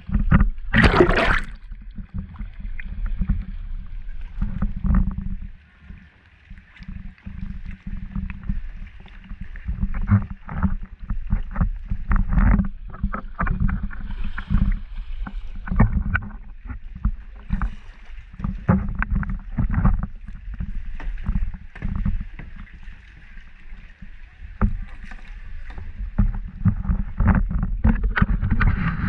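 Kayak paddling: irregular paddle strokes splashing and dripping in the water, over low bumping and rumbling. A loud splash-like hiss comes about a second in.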